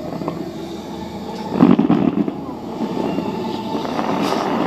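Fireworks bursting overhead, a dense volley with the loudest blasts about a second and a half in, followed by a steadier rumble of further bursts.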